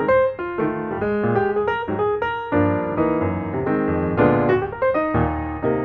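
Background piano music: a light melody played over steady chords.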